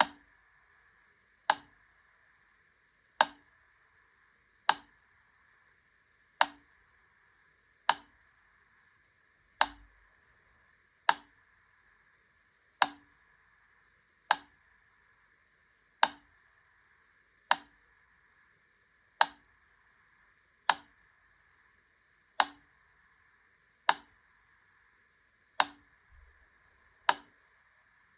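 Wittner Taktell Piccolo clockwork metronome ticking slowly, one sharp tick about every 1.6 seconds, the spacing alternating slightly between shorter and longer gaps.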